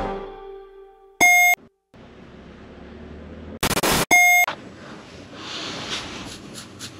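Outro music dying away, then two short electronic beeps of the same pitch about three seconds apart, with a brief burst of noise just before the second one. Between and after them there is only a faint hiss of room sound.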